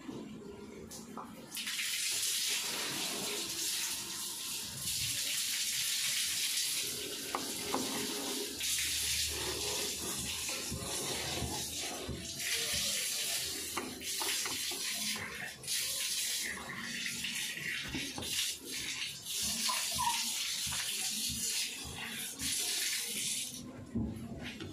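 Water rushing steadily into an LG automatic washing machine through its inlet, starting about two seconds in and stopping shortly before the end. The water is still flowing with the machine switched off, which is the fault being traced.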